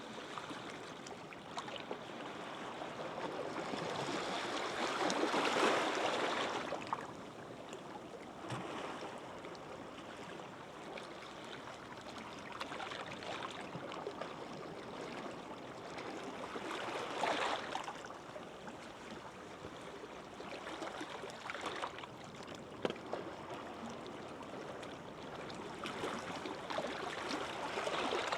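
Gentle sea waves breaking and washing over a shallow sandy beach, a steady wash that swells into louder surges, the biggest about five seconds in and another past the middle, with fine crackling of water running back over sand.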